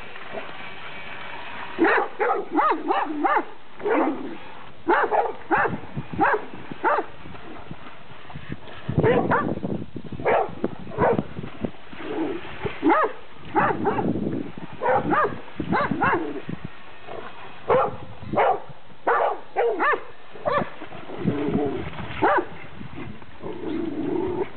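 Dogs barking over and over in quick runs with short pauses, worked up by a remote-control boat on the water.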